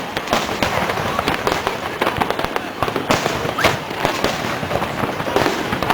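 Fireworks display: a dense, continuous barrage of quick bangs and crackles with no pauses.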